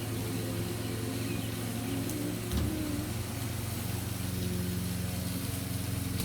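A steady low hum of a running motor, with a brief low thump about two and a half seconds in.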